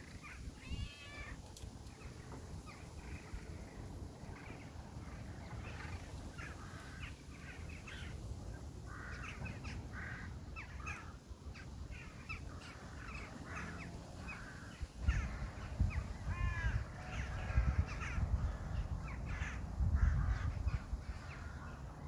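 A flock of crows cawing, many short harsh calls repeating and overlapping. From about fifteen seconds in, bursts of low rumble come in under the calls.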